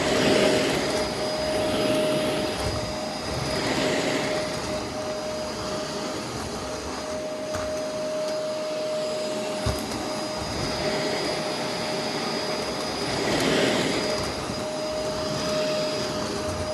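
Two Shark upright vacuum cleaners running together on a rug. A steady motor whine sits over rushing airflow that swells and fades with the pushing strokes. One machine has a broken brush roll.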